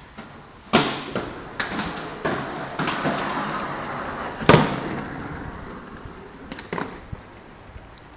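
Inline skate wheels rolling over concrete with a rushing sound, broken by a series of sharp clacks as the skates strike the ground, the loudest about four and a half seconds in.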